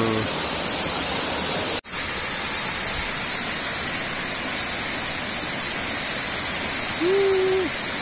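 Waterfall: a steady, even rush of water falling onto rocks and a pool. About two seconds in, the sound drops out for an instant. Near the end a short voice-like sound rises above the rush.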